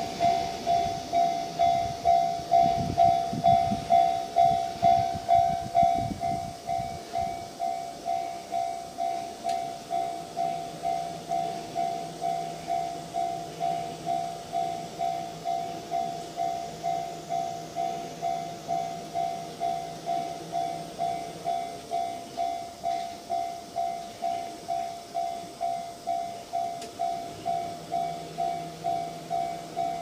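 Japanese railway level-crossing warning bell ringing, an electronic two-tone ding repeated evenly about twice a second. A train rumbles past over the first six seconds or so, and the bell keeps ringing after it has gone.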